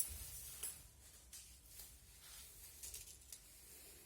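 A pan of oil heating on a gas stove: a faint steady hiss with a few soft ticks.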